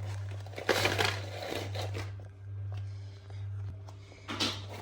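A steady low hum with brief rustling, crinkling noises about a second in and again near the end.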